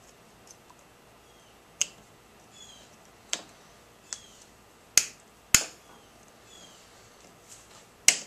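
Sharp, irregular clicks and taps of metal parts being handled as the carburetor and its clamp are fitted back onto a lawn mower engine, about six separate clicks.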